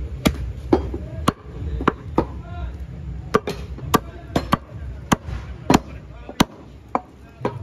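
Heavy cleaver chopping beef on a round wooden log block: about fifteen sharp, irregular chops, roughly two a second, over a steady low background rumble.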